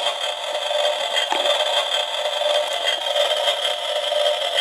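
Toy kitchen stove's electronic cooking sound effect, set off by a button press: a steady hiss played through the toy's small speaker.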